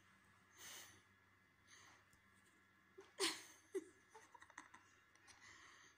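Near silence, broken by a few soft, short breathy sounds, the clearest about three seconds in.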